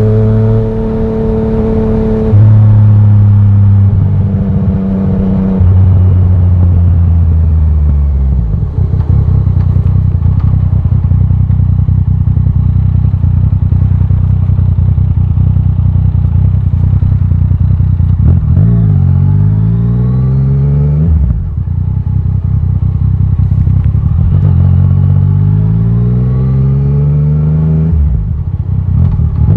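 Yamaha Tracer 900 GT's three-cylinder engine through a titanium Akrapovic exhaust, on the move. The revs fall early on, the engine runs steady and low for a while, then the revs climb twice in a row, each climb ending in a brief dip as it changes up a gear.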